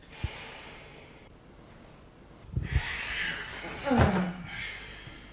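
Soft knocks and rustling of a person on a bed, with a low double thump about two and a half seconds in. Near the end comes a short groan that falls in pitch and then holds.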